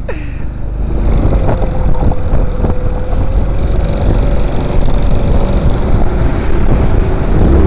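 Motorboat engine running steadily with a held whine, over a loud, deep rushing noise, with a couple of sharp knocks about one and a half and two and a half seconds in.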